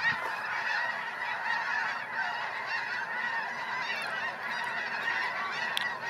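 A large flock of snow geese honking together in a dense, continuous chorus of many overlapping calls.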